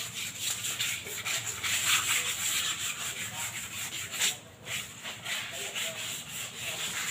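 Rapid rasping strokes of scrubbing on the outer surfaces of upturned cement plant pots, several people at once, with a brief lull about four and a half seconds in.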